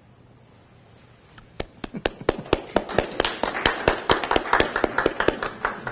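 A small group of people clapping, starting with a few scattered claps about a second and a half in and building into steady applause.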